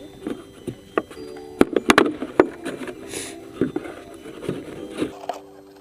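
Plastic bottle being worked by hand as a hole is made in its side: irregular sharp clicks and crackles of the plastic, with a cluster of louder clicks about two seconds in.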